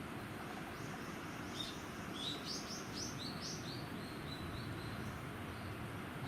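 A small songbird singing: a quick run of high chirps about a second and a half in, trailing off into fainter, evenly spaced notes, over steady low background noise.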